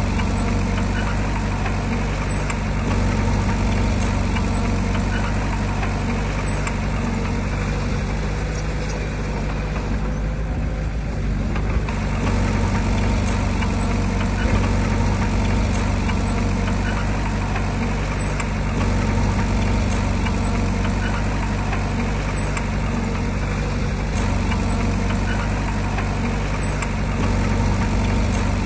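Heavy diesel engine of earthmoving equipment, a bulldozer or dump truck, running steadily at a low, even pitch.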